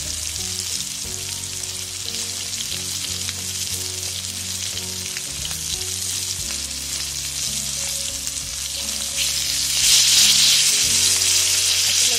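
Flour-coated sole (lepa) fillets sizzling as they shallow-fry in hot oil, cooking to a crisp golden crust. The sizzle grows louder about ten seconds in.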